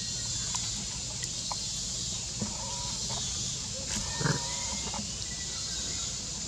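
Macaque giving a brief vocal call about four seconds in, over a steady outdoor hiss with scattered small clicks and rustles of dry leaves.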